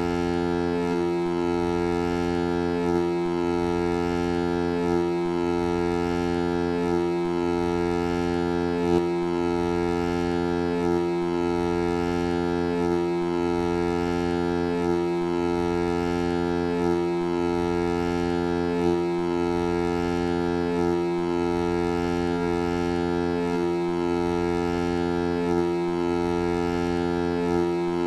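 Vocoder-processed foghorn sound effect: one deep, unbroken horn drone with many overtones, held at a steady level, with a slight pulse about every two seconds.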